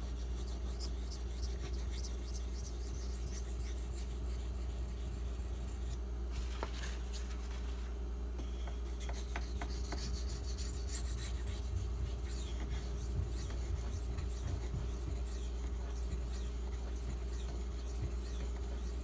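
Maxamet steel knife edge drawn in repeated strokes across a 1000-grit diamond bonded waterstone, a soft rasping scrape, over a steady low hum.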